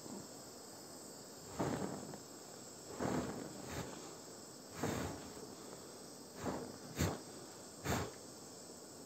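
Plastic toy figurine burning, sputtering in about six short bursts, the last two sharper, like pops.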